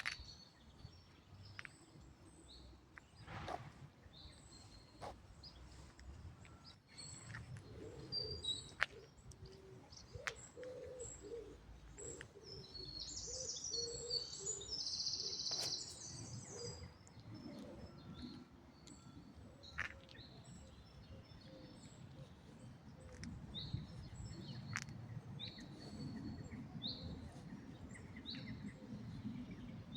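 Birds chirping and calling, short high chirps scattered throughout with a louder burst of calls about halfway through, over a low background rumble.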